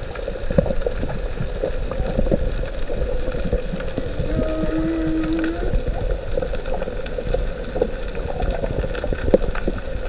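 Humpback whale song heard underwater: a long, steady low tone with a shorter higher tone over it about four seconds in, over a constant underwater rush with scattered small clicks and crackles.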